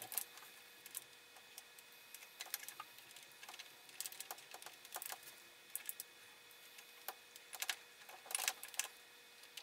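Faint, scattered small clicks and short scrapes of a hand tool and metal parts on a pinball flipper assembly as it is unscrewed and taken apart.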